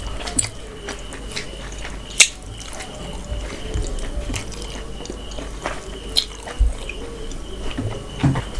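Mouth sounds of eating spiced mutton and rice: chewing with scattered wet clicks and smacks, the sharpest about two seconds in.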